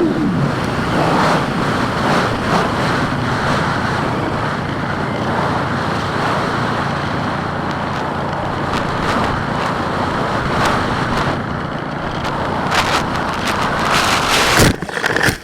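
Steady wind rush of a Skywalker X5 flying wing gliding with its electric motor dead, the motor having burned out in flight. Near the end come a few knocks and then one loud impact as the plane crashes nose-first.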